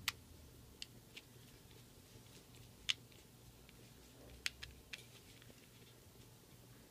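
Faint, scattered small clicks and taps of a plastic key fob housing and its parts being handled, about seven in all, the loudest about three and about four and a half seconds in.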